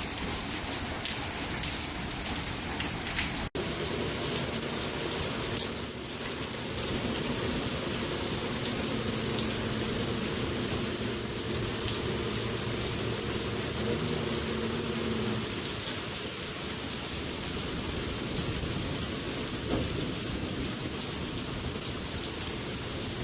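Steady rain falling on surfaces, with scattered sharper drop hits. A low steady hum sits underneath from about 4 to 15 seconds in, then stops.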